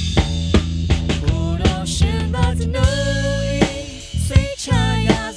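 Mixed song playing back: a drum kit beating steadily over a bass line, with a melody line coming in about a second and a half in. The kick, snare and bass are being run through a compressor.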